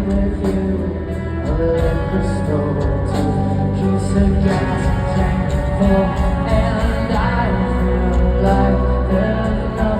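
Live rock band playing, with sung vocals over dense, loud instrumental backing.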